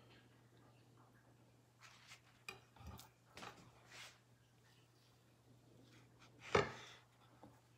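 Chef's knife cutting a raw albacore tuna loin on a bamboo cutting board: a few faint scrapes and taps of the blade against the board, then one louder knock about two-thirds of the way through.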